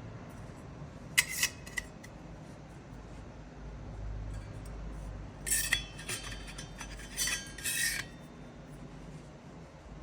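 Metal stove parts clinking and scraping together as they are handled: a few sharp clinks about a second in, then a longer run of ringing clinks and scrapes from about five and a half to eight seconds in.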